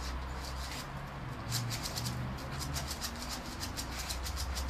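Pug puppy's claws scratching rapidly at a wall: a quick run of light, sharp scrapes at about eight a second, starting about a second and a half in, over a steady low hum.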